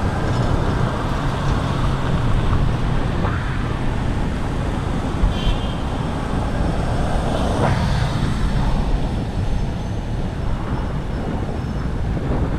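Steady road traffic noise from cars and other motor vehicles on city streets.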